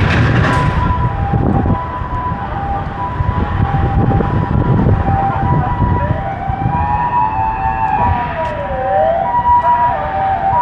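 Emergency vehicle sirens: a two-tone siren alternating steadily between a high note and a lower note. From about six seconds in, a second siren joins it, wailing slowly up and down. Street traffic rumbles underneath.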